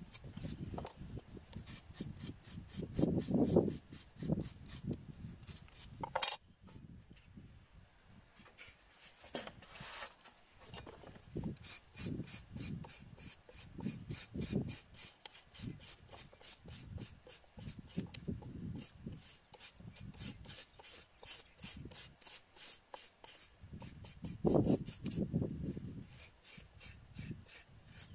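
Steel cleaver scraping along lemongrass stalks on a wooden chopping block: quick, repeated rasping strokes, with a few dull knocks of the blade or stalk on the block.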